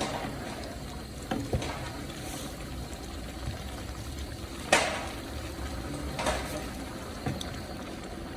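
Liquid bubbling steadily in a cooking pot, with a few sharp clanks of metal, the loudest just past halfway.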